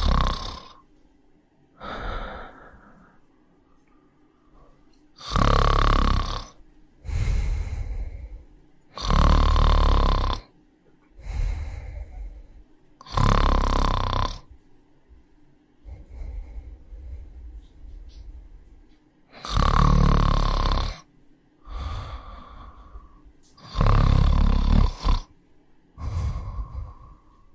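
Puppy snoring in its sleep: loud snores roughly every four seconds, with a softer breath between each.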